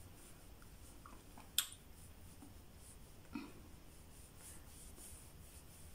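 Quiet small-room tone with one sharp click about one and a half seconds in and a softer knock about three and a half seconds in.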